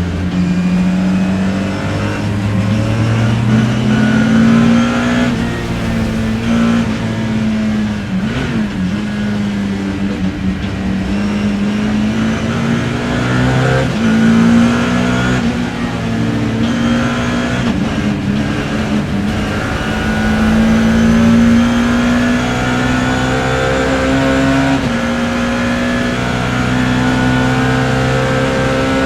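BMW E30 M3 race car's S14 four-cylinder engine heard from the cockpit, revving up and falling back over and over as it is driven hard through the gears.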